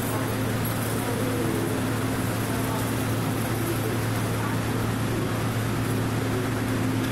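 Underground station platform ambience: a steady low hum with a faint steady tone, from a standing electric express train and the platform's machinery, with faint background voices.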